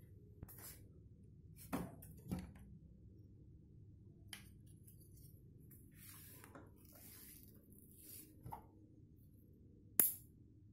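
Small metal weights and a wooden-stick frame with string being handled: a few faint knocks and clinks, with soft rustling, and one sharp click near the end.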